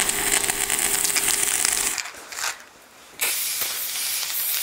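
Electric welding arc crackling and sizzling with a faint steady hum, stopping abruptly about two seconds in. After a short break, a steady spray hiss with a few clicks follows.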